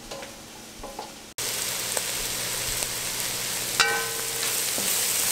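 Diced carrots, mushrooms, onion and garlic sautéing in a pot, stirred with a wooden spoon: a steady sizzle that starts abruptly after a quiet first second. One brief squeak comes about four seconds in.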